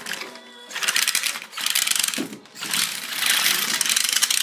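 Screw-studded RC car tires clattering and scraping on concrete as the car drives hard: a dense, rapid ticking of screw heads striking the floor, in a short burst about a second in and again from about two and a half seconds on.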